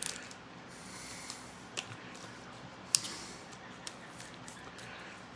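Trading cards being handled: a few light clicks and taps as cards and pack wrappers are moved, the sharpest about three seconds in.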